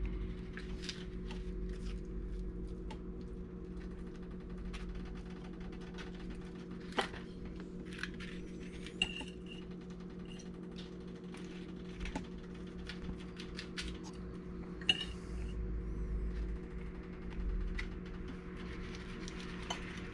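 Scattered light taps and clicks of crisp fried taco shells and fish being handled over ceramic plates, the sharpest about seven and fifteen seconds in, over a steady low electrical hum.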